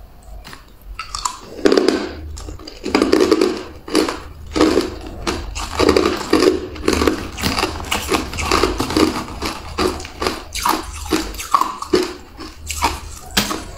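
A person biting and chewing hard ice chunks: a quick, continuous series of sharp, loud crunches as the ice cracks between the teeth.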